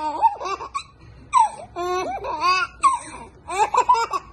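Toddler laughing in repeated high-pitched bouts of giggles, about five bursts with short gaps between them.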